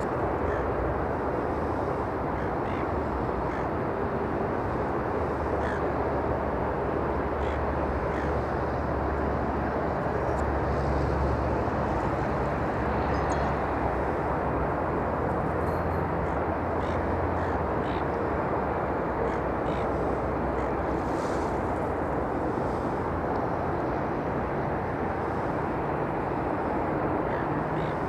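Steady rumble of jet airliner engines across the airfield. The low drone swells in the middle and eases off again. A few short bird calls sound faintly above it.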